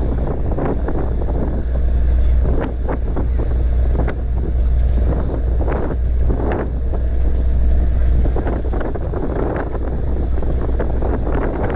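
A boat's engine running with a steady low drone, under strong wind buffeting the microphone and irregular splashes of water.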